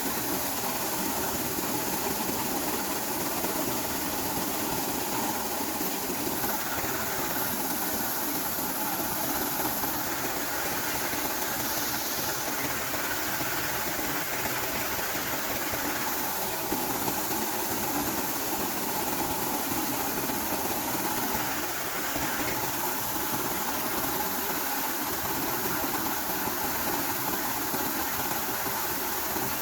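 A tractor-driven corn-shelling machine running steadily, its engine holding an even speed throughout.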